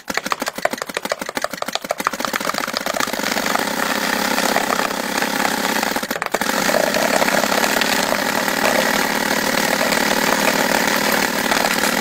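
Paintball Gatling gun firing one long continuous burst. The rapid individual shots blur into a steady stream, with one brief break about six seconds in.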